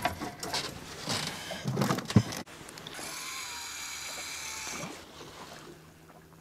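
Knocks and rustling of bait and gear being handled, then a sharp click and a steady whir for about two seconds as a fishing reel's spool spins, paying out line on a cast.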